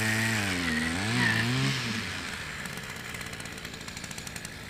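A motor vehicle engine running steadily, its pitch dipping and rising about a second in, then fading away.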